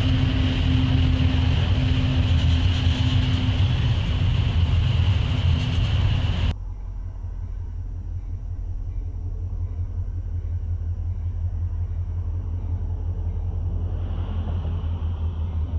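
Freight train rolling past on the rails, autorack cars clattering by over a steady diesel engine drone. About six and a half seconds in, the sound cuts off abruptly to a quieter low rumble. Near the end a Norfolk Southern diesel locomotive's engine grows louder as it approaches.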